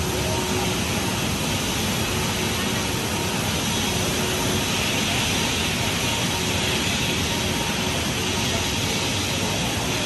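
Steady, even roar of a ship lift at work, with a faint machine hum: the lift's drive machinery running and water streaming off the underside of the moving steel trough.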